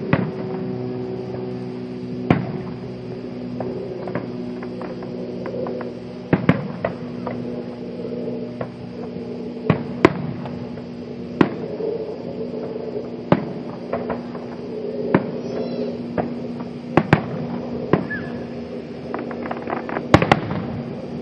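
Fireworks going off: about a dozen sharp bangs at irregular intervals, some in quick pairs near the end, over a steady low hum.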